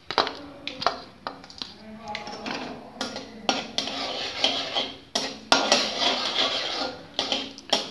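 Slotted metal spatula scraping and clicking against a metal kadhai while stirring chopped almonds in hot ghee, with many separate knocks throughout.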